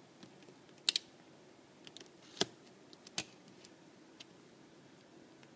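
Snap-off utility knife being handled at a cardboard box: a few separate sharp clicks, a quick double click about a second in and single clicks about two and a half and three seconds in.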